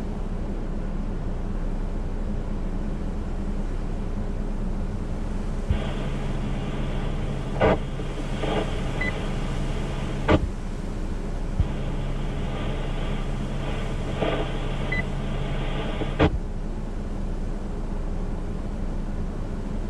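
Radio scanner hissing steadily, with two keyed-up transmissions that carry no speech, each about four to five seconds long. Each opens and closes with a click, with a low steady tone, a few brief crackles and a faint beep while it is open.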